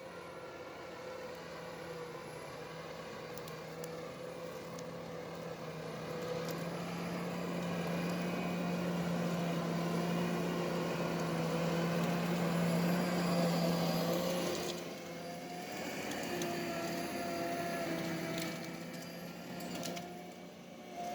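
Ponsse forestry harvester running under load, its engine and hydraulics getting louder and then easing off sharply about two-thirds of the way through, with occasional sharp cracks of wood.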